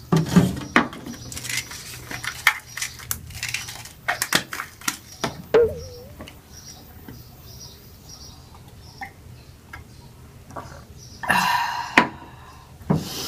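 Clicks and knocks of a mirrored medicine cabinet's sliding doors and the small bottles and objects inside being handled, busiest in the first half. A short burst of hiss comes about two seconds before the end.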